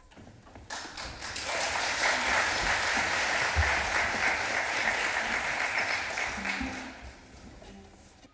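Audience applauding, swelling about a second in and fading out about seven seconds in.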